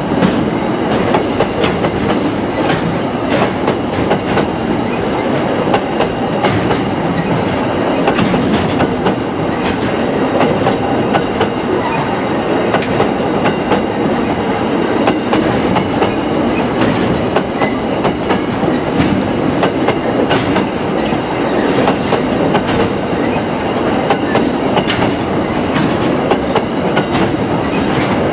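Aurizon coal train's hopper wagons rolling steadily over a timber trestle bridge on narrow-gauge track. A continuous loud rolling rumble runs throughout, with frequent sharp wheel clicks and clanks.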